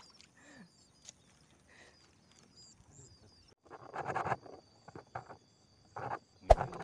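Faint, repeated high bird chirps over a quiet waterside. From about three and a half seconds a subscribe-button overlay's sound effects come in: a thin steady high tone and short bursts, then a single sharp mouse-click sound near the end.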